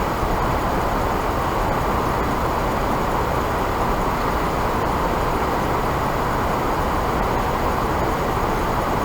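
Steady rushing roar of water pouring through a river dam, even and unbroken.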